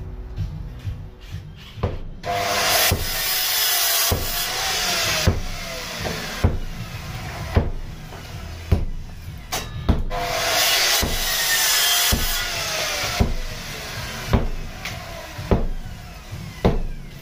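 Hammer blows knocking out brick and mortar from a load-bearing brick wall, one sharp strike about every second. Long stretches of loud hissing noise run under the blows.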